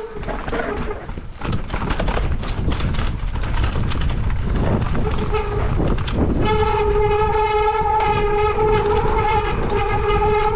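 Mountain bike descending a rough trail: rattling tyre and trail noise, then from about six and a half seconds a steady, horn-like tone from the bike held over it until the end.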